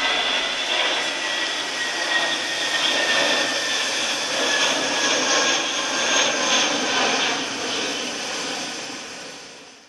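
Jet airliner (Airbus A320) roaring as it climbs out after takeoff, with a faint whine that slides slowly down in pitch. The roar fades away near the end.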